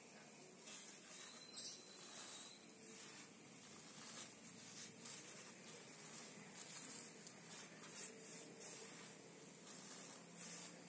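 Faint, irregular rustling of a black plastic polybag and the burnt rice husk and compost mix inside it, pressed by gloved hands around a newly planted cutting.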